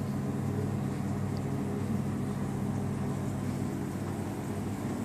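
Steady low drone of a river cruise ship's machinery heard inside the bar, an even hum of several low pitched tones with no change.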